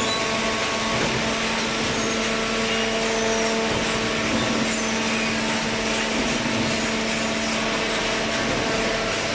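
Hydraulic vertical cardboard baler running: a steady machine hum with a constant low whine from its motor and hydraulic pump.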